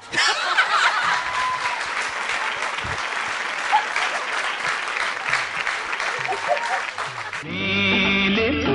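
Studio audience applauding, a dense steady patter of clapping. About seven and a half seconds in, the clapping cuts off and Indian film-style song music starts.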